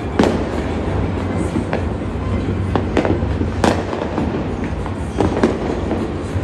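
Fireworks and firecrackers going off across a city: a steady rumbling din with sharp bangs every half second to a second, the loudest near the start, about three and a half seconds in and about five and a half seconds in.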